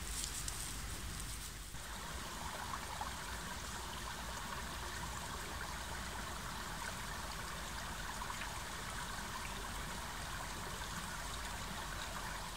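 A small woodland brook trickling steadily. In the first couple of seconds there is faint rustling and scratching in the leaf litter and mud, where a raccoon dog is foraging.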